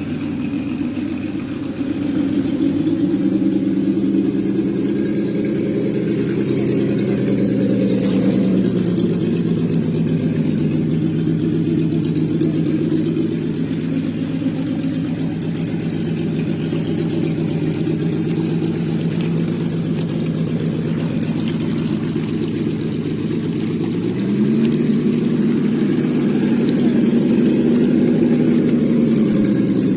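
Simulated engine sound from an ESS Dual sound module on a Traxxas TRX4 RC crawler, played through its speaker: a steady idle that steps up to a higher rev about 3 seconds in, falls back to idle after about 8 seconds, and revs up again for a few seconds near the end as the throttle is applied.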